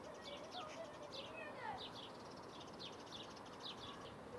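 Birds chirping faintly: a steady run of short, quick falling chirps, with a few lower whistled glides about a second in.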